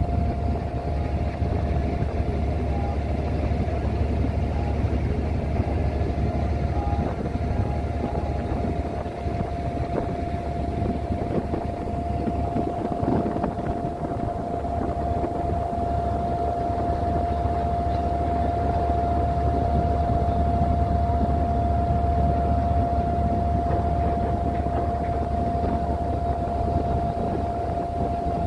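Inboard engine of a wooden abra water taxi running steadily while the boat is underway, a low drone with a constant high whine over it.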